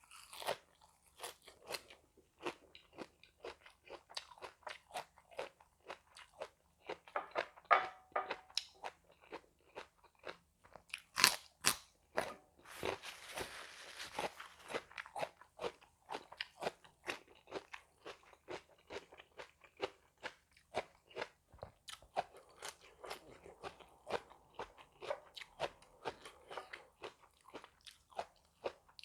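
A person chewing and biting crunchy food close to the microphone: a steady run of sharp crunches, a few each second, with a short stretch of rustling noise about halfway through.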